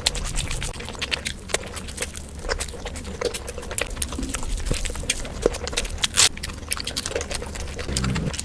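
Close-miked chewing and mouth noises while eating fish curry: irregular wet smacks and clicks, with one louder smack about six seconds in.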